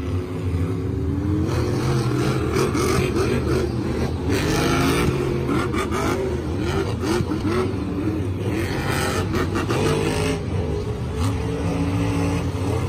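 Monster truck engines, supercharged V8s, revving hard with their pitch repeatedly rising and falling. A few louder rushes of noise come over the top.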